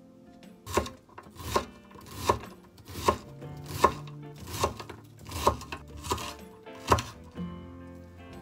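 Knife chopping on a cutting board in slow, even strokes, about nine cuts at a little over one per second, over faint background music.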